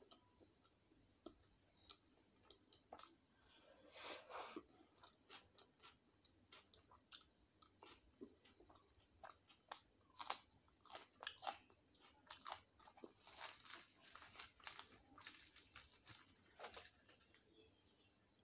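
A person eating: wet chewing with irregular crisp crunches and mouth clicks while biting and chewing puri with chole and a raw green chilli. The loudest crunching comes about four seconds in and again from about thirteen to sixteen seconds.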